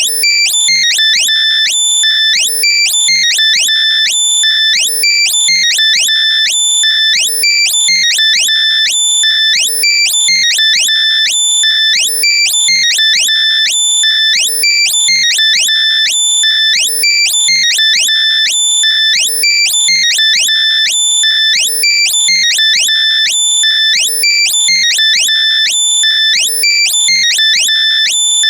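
Loud, compressed electronic locator sound for finding lost earbuds: a continuous, high-pitched run of synthesized beeps with quick rising chirps repeating over and over at a steady level.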